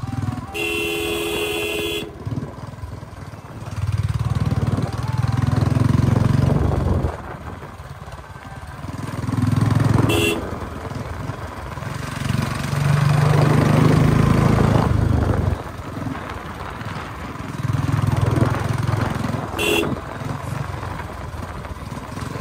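Royal Enfield Bullet 350's single-cylinder engine, fitted with a short-bottle aftermarket silencer, pulling hard in three surges and easing off between them. A horn sounds for about a second near the start, with two short toots, one about halfway and one near the end.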